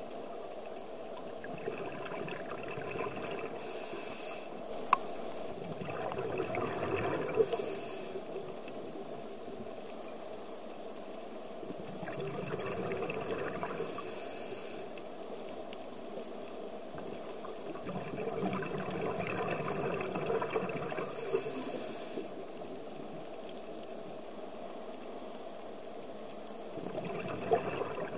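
Scuba diver breathing through a regulator underwater, heard through the camera housing: a short high hiss on each inhale and a bubbling rush of exhaled bubbles, in a slow rhythm of roughly one breath every six seconds.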